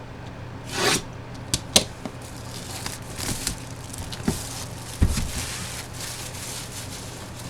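Cardboard packaging being handled and opened: a swish about a second in, two sharp clicks, a stretch of rustling, and a thump about five seconds in as something is set down, then softer rustling.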